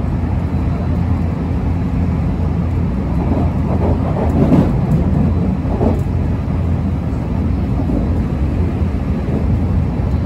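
Steady low rumble of an electric Special Rapid commuter train running at speed on the JR Kobe Line, heard from inside the carriage. The rumble swells briefly about four to six seconds in.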